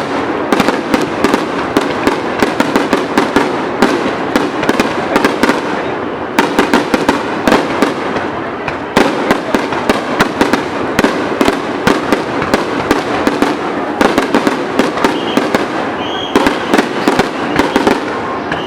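Fireworks going off in quick succession: a dense, continuous crackle of many sharp pops and bursts overlapping without a break.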